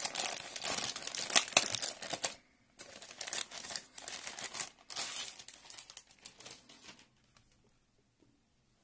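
Clear plastic bag crinkling in bursts as a wireless router is pulled out of it, with a sticker seal peeled off at the start. The crinkling stops about seven seconds in.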